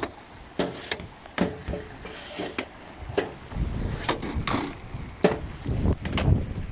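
Irregular sharp knocks and scrapes, a dozen or so, with wind rumbling on the microphone that grows stronger in the second half.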